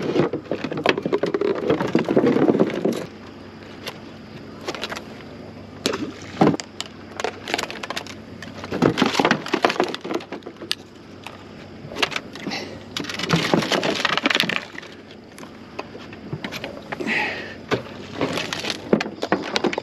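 Plastic duck decoys and blind gear being handled in a boat: an irregular string of knocks, clacks and scrapes, with rustling in between.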